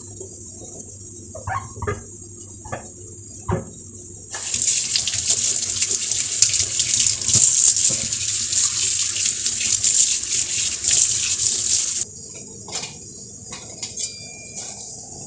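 Water running from a tap into a sink for about eight seconds, turned on about four seconds in and off again near the end. A few light knocks come before it and a few more clicks and knocks after it.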